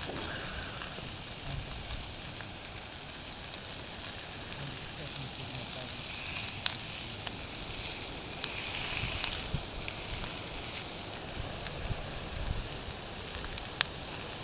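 Minced meat on a tortilla sizzling steadily as it fries in a pan on a camping stove, with a few sharp ticks and pops.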